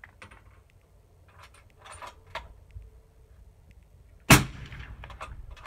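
A single suppressed rifle shot from a 22-250 bolt-action through a Thunder Beast Ultra 7 6.5 mm suppressor, about four seconds in: one sharp report with a short tail, read at about 130 dB at the shooter's ear. A few light clicks come before it as a round is handled.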